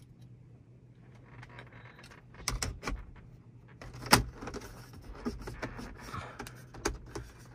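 Plastic dome light lens covers being pressed back into the overhead console of a 2015 Audi Q7: a scatter of short clicks and snaps as the trim seats, the sharpest one about four seconds in.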